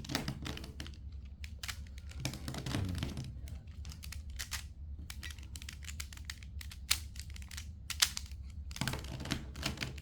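Plastic twisty puzzle cube being turned one-handed: an irregular run of quick clicks and clacks as its layers turn, with two sharper clacks near the end.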